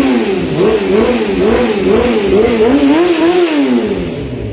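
1995 Honda CBR600F3's inline-four engine being revved through a freshly fitted fat-body shorty exhaust pipe, the throttle blipped up and down about twice a second with the highest revs around three seconds in. The new pipe makes the bike a lot louder, even with a dB killer fitted.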